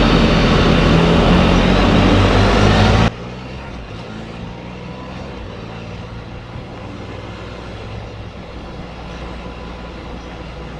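Can-Am Spyder RT Limited three-wheeler on the move: steady engine drone under loud wind and road rush. About three seconds in the sound drops suddenly to a much quieter, duller engine hum.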